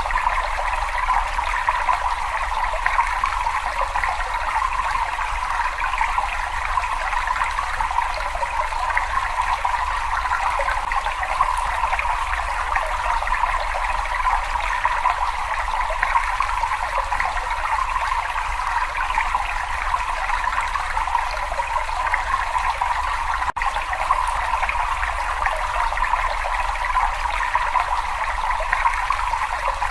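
Steady trickling, running water in a cave, an even, unbroken flow without pauses.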